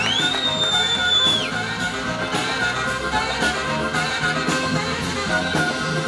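Live blues band playing, with amplified harmonica and tenor saxophone over electric bass, guitar and drums. Right at the start a high note slides up and is held for about a second before dropping away.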